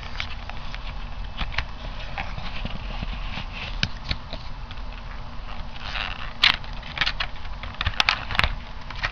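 A cardboard card-game box being opened and its contents handled: irregular taps, clicks and rustling, with a cluster of sharper knocks about six to eight and a half seconds in.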